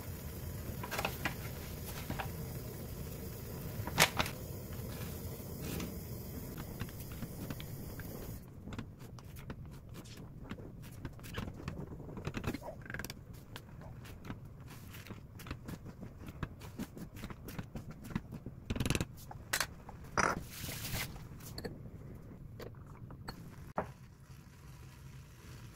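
Steamed egg cooking in a black earthenware pot on a gas stove, with a steady low background and scattered small clicks and taps. In the middle part these come thick and fast as a wooden spoon stirs the half-set egg against the pot.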